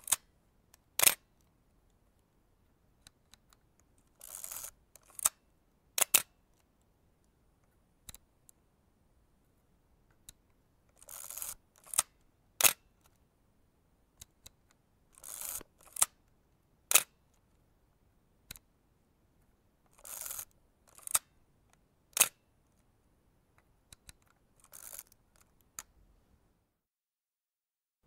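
Vintage film camera mechanism being worked over and over: a short rasping burst followed by one or two sharp clicks, the cycle repeating about every four to five seconds.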